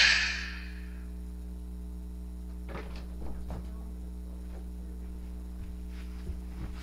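Music fading out in the first second, then a steady low electrical hum with a few faint, soft knocks and rustles.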